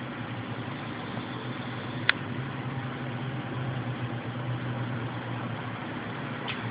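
A pet snoring: a steady low rumble that swells slightly midway, with one sharp click about two seconds in.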